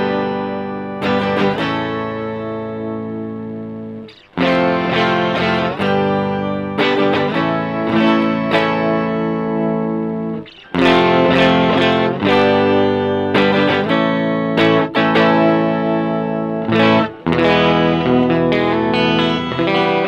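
Electric guitar played through an Electro-Harmonix Micro POG polyphonic octave generator: chords and picked phrases ring with the pedal's sub-octave and octave-up voices blended with the dry guitar. It breaks off briefly about four, ten and seventeen seconds in.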